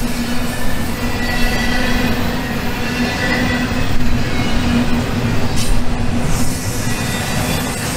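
Model freight train of double-stack container cars rolling along the layout track: continuous wheel-on-rail running noise with a steady hum underneath.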